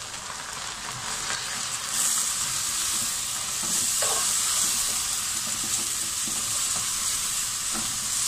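Beef pieces with spice mix and salt sizzling in hot oil in a pot, stirred with a silicone spatula. The frying hiss grows louder about two seconds in, as the stirring begins.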